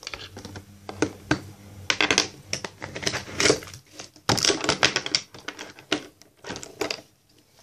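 Makeup products (brushes, pencils and small plastic cases) being rummaged out of a bag and set down on a table: an irregular run of clicks and clatters.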